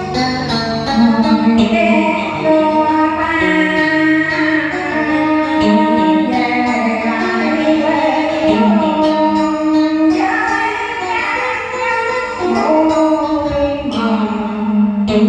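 A woman singing a Vietnamese song over instrumental backing.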